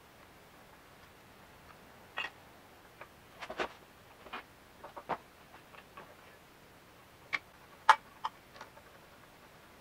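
Irregular small clicks and metallic knocks as a hex key and intake parts are handled on a two-stroke engine's intake plate. The clicks are scattered through the stretch, and a sharp one near the end is the loudest.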